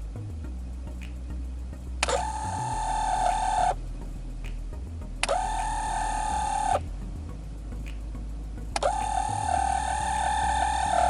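Nissan A31 Cefiro's HVAC mode door actuator squealing as it drives the vent door, an abnormal noise that comes each time the air outlet mode is changed. There are three loud squeals: one about two seconds in, a shorter one about five seconds in, and a longer one from about nine seconds in.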